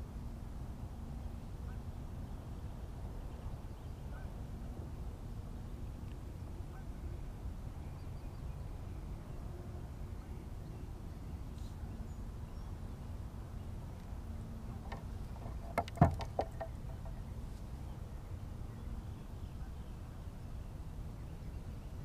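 A brief burst of honking, quacking waterfowl calls about fifteen seconds in, with a sharp knock among them, over steady low outdoor background noise.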